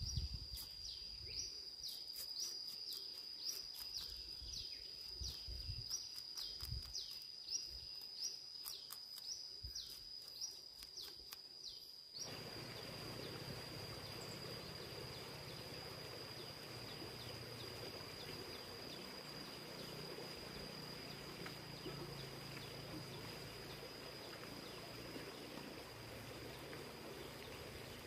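Outdoor ambience led by a steady high-pitched insect drone. For about the first twelve seconds it is joined by short falling chirps repeating every half second or so, with scattered clicks. Then the background changes suddenly to a steady rushing haze under the same drone.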